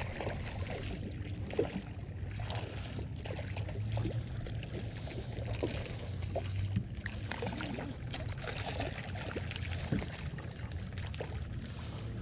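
Water splashing and sloshing as a hooked fish thrashes at the surface close to the boat, in short scattered bursts over a steady low rumble.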